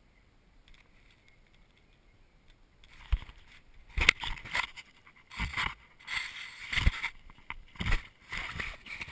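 Action camera being handled and knocked about while its wearer climbs a tree: irregular thumps with scraping and rustling of clothing and bark against the camera, starting about three seconds in after near silence.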